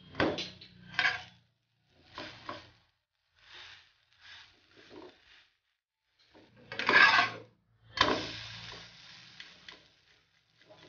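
Flat metal spatula scraping, knocking and pressing on a non-stick frying pan as a stuffed bread slice is flipped and pressed down in oil. It comes as a string of short scrapes and taps, the loudest about seven seconds in, then a sharp knock followed by a fading hiss.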